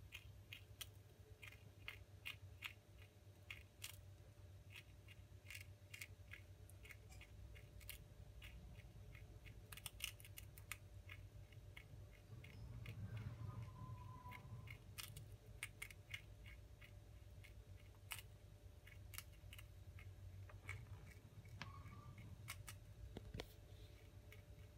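Prairie dog gnawing and crunching a treat held in its paws: faint, irregular crisp clicks of its teeth.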